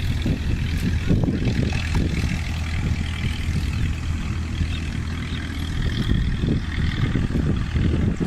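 A small engine running steadily, with a low hum and uneven rumbling over it.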